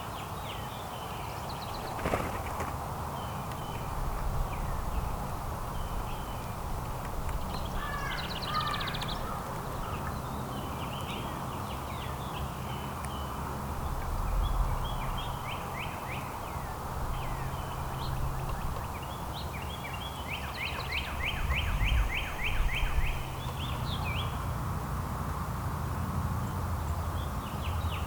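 Small songbirds chirping now and then, with a quick, evenly spaced trill a little past the middle, over a steady low background rumble.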